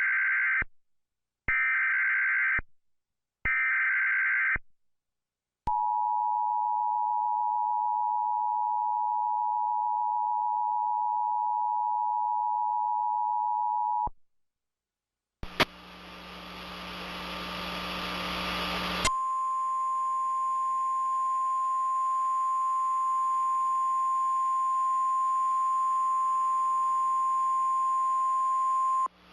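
Emergency Alert System alarm (a fake one): three short, buzzy header data bursts, then the two-tone attention signal held steady for about eight seconds. After a brief gap, a hiss of static swells up, and a single steady alert tone sounds over it for about ten seconds, stopping just before the end.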